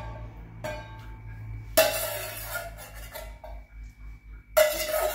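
Metal skimmer clanking against a stainless steel pot and a glass bowl while boiled pumpkin pieces are scooped out: three sharp clanks, the last two loudest, each followed by a brief metallic ringing.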